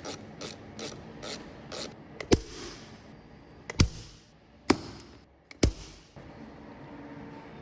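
A ratchet clicking in quick even strokes, then four sharp, loud knocks spread about a second apart, as from parts of the stool being struck or knocked together.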